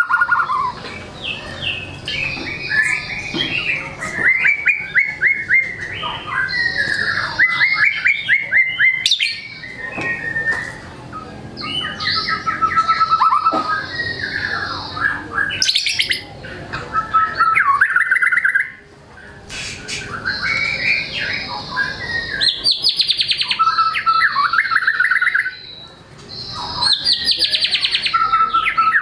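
White-rumped shama (murai batu) singing vigorously, pouring out its repertoire of learned and mimicked phrases: fast trills, rapid repeated notes and whistled glides. Two short lulls come at about 18 and 26 seconds in.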